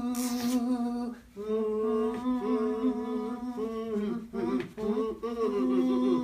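Wordless a cappella humming: a voice holding long, steady notes with short breaks between them, and a breathy whoosh just after the start.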